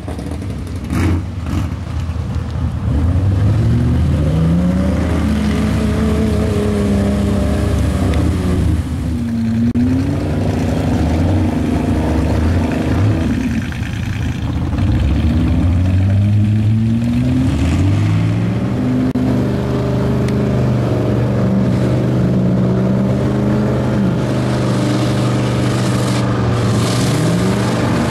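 SUV engine revving hard as it drives through a water-filled mud pit, its pitch climbing and falling several times with the throttle, then held at a steady high rev for the last several seconds.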